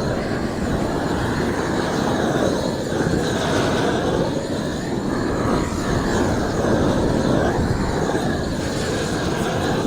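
Propane roofing torch burning with a steady rushing noise, its tone slowly shifting, as torch-on bitumen roll roofing is heated and laid.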